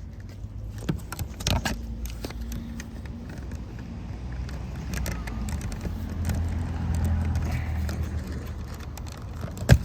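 Plastic interior door-panel trim being pulled and worked loose by hand: scattered clicks and light rattling over a low steady rumble, with one sharp, loud click near the end.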